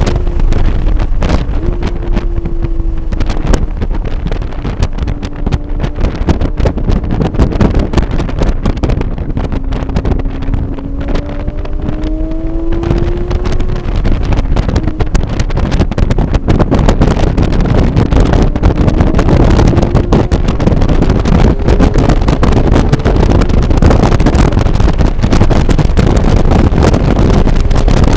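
Porsche 991.1 GT3's naturally aspirated 3.8-litre flat-six at speed on track, its note rising and falling as it accelerates, brakes and shifts, under heavy road, tyre and wind noise. From about halfway the noise grows louder and denser and the engine note is less distinct.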